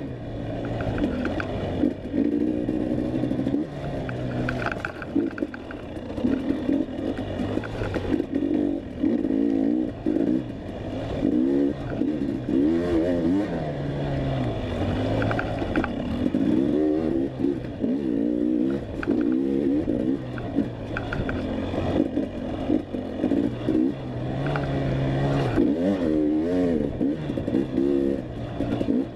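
Enduro dirt bike engine revving up and down as the bike is ridden hard, its pitch rising and falling every second or two with the throttle and gear changes.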